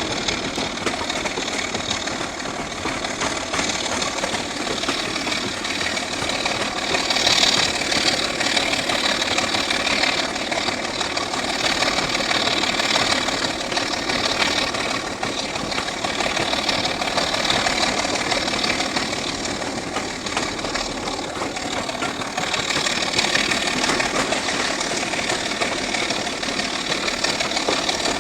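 BR Class 24 diesel locomotive's six-cylinder Sulzer engine thrashing under full load, hauling eight coaches up a steep bank. A loud, continuous engine note that swells and eases slightly but never lets up.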